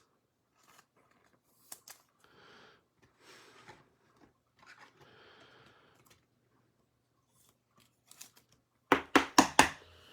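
Scissors snipping four times in quick succession, cutting open a trading-card pack wrapper, after some faint rustling of handling.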